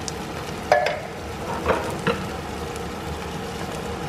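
Chicken drumsticks and canned diced tomatoes sizzling in a pot, with a spatula knocking and scraping against the pot three times in the first half, the first knock the loudest.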